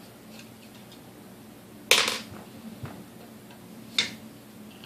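Two sharp clicks about two seconds apart, with a few faint ticks between: tools and screws being handled while taking apart a KitchenAid 3C stand mixer.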